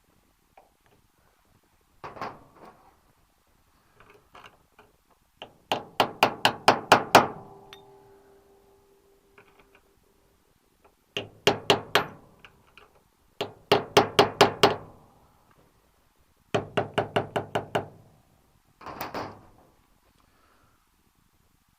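Runs of rapid, sharp hammer taps on metal, about seven a second, in bursts of a second or so, working a snapped-off screw loose. One run leaves a ringing metallic tone after it.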